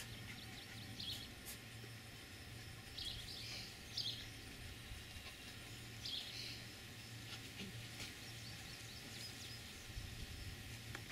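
Scattered short, high bird chirps every second or two over faint outdoor background noise with a low steady hum.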